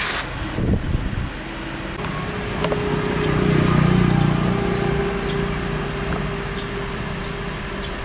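A motor vehicle passing by: a low engine hum swells to its loudest about halfway through and then fades, over steady outdoor background noise.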